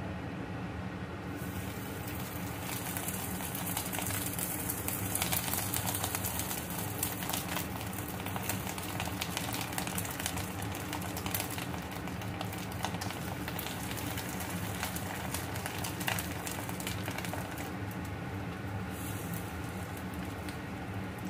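Hot oil sizzling and crackling in an aluminium kadai as fish-roe fritters deep-fry; the crackle grows louder about two seconds in, as the pan fills. A steady low hum runs underneath.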